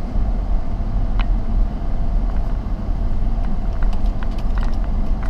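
Car cabin noise while driving slowly over a rough, potholed dirt road: a steady low rumble with a few light knocks and rattles, more of them near the end.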